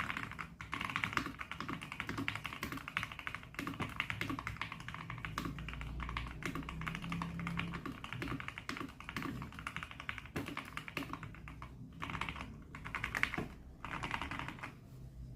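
Fast, continuous typing on a Zifriend T62 mechanical keyboard with red linear switches: a dense run of key clacks, broken by a few short pauses near the end.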